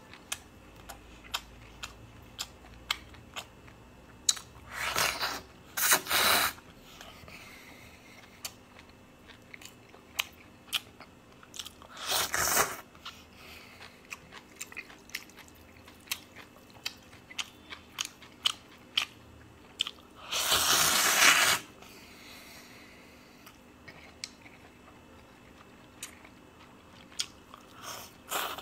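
Close-up eating of cold noodles: chewing with many sharp, wet mouth clicks, broken by four loud slurps of noodles, each about a second long, the last near the end.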